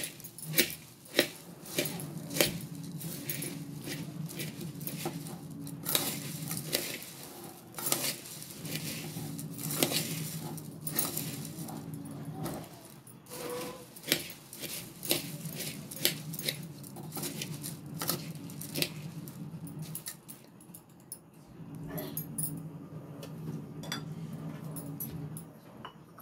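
Dry puffed rice and namkeen being tossed and mixed by hand in an aluminium pot: an irregular rustle with sharp rattling clicks against the metal, over a low steady hum.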